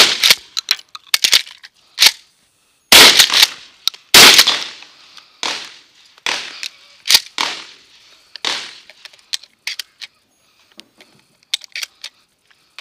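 Shotgun blasts at close range: three very loud shots in the first four seconds or so, each with a long echoing tail, then a few weaker shots spaced about a second apart. After that there are only light clicks and rattles as the shotgun is handled.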